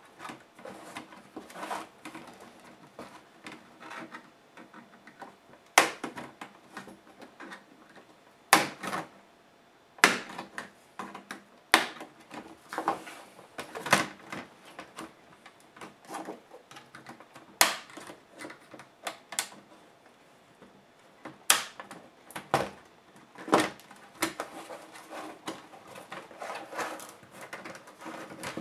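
Plastic snap clips of a Dell Studio 1558 laptop's palmrest clicking loose as it is pried off by hand, with irregular sharp clicks and knocks of plastic parts being handled; a handful of the snaps are much louder than the rest.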